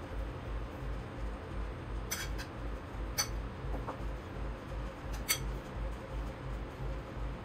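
A few light clicks and taps from hands working on the kitchen counter, over a steady low pulsing hum.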